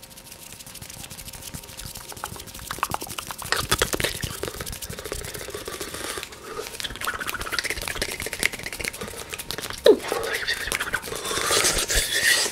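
Rapid, dense clicking and crackling ASMR trigger sounds made close to the microphone, growing gradually louder.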